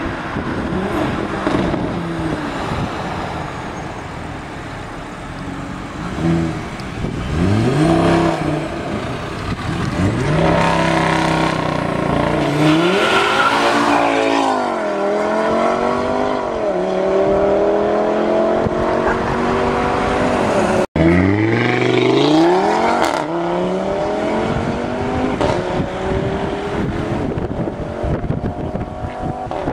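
Audi RS3's turbocharged 2.5-litre five-cylinder engine through a Milltek aftermarket exhaust, revved hard several times, its pitch sweeping up and falling back. In the second half come longer, slowly climbing pulls as the car accelerates away.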